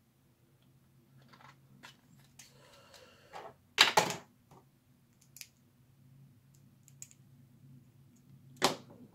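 Small hard plastic blaster parts and shell halves being handled and fitted on a desk: scattered light clicks and rustling, with a sharp clack about four seconds in and another near the end. A faint steady low hum sits underneath.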